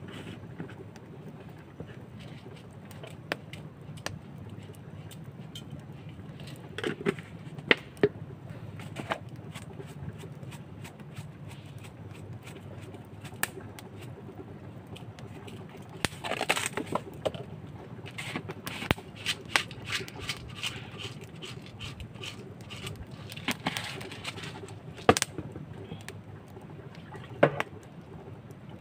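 Plastic spice jars being handled over a steel plate: screw lids clicking, jars tapping down and seasoning shaken out, heard as scattered sharp clicks and a few short spells of rattling. A steady low hum runs underneath.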